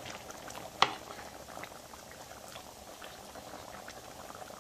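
Oxtail gravy boiling in a pan: a steady bubbling with small pops, and one sharp click about a second in.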